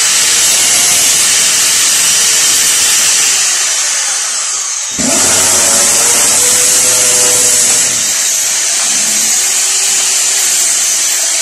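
Corded electric drill boring into a kitchen wall, the motor running loud and steady under load; it eases off briefly about five seconds in, then spins up again and keeps drilling.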